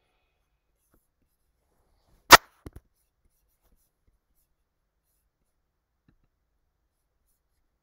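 Computer mouse clicks: one sharp, loud click followed closely by two much softer clicks.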